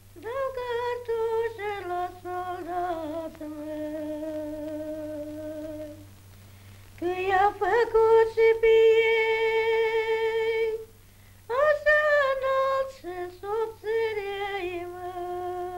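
A woman singing unaccompanied: a slow melody of long held, wavering notes, sung in three phrases with short pauses between them.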